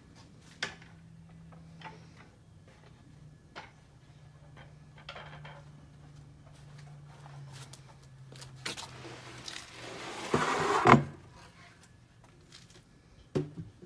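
A plywood crosscut sled being handled and slid off a table saw's top: scattered light wooden clicks and knocks, a loud scrape of wood on the table about ten seconds in, then a couple of sharp knocks near the end as wooden pieces are set down.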